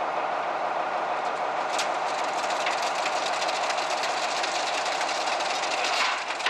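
Concrete mixer truck's engine running steadily, with a fast rattling joining in from about two seconds in.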